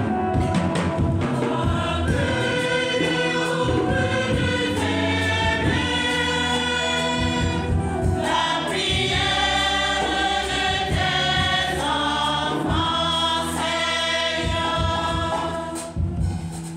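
Church choir singing a hymn, with women's voices leading through a microphone over a steady low accompaniment. The singing eases off near the end.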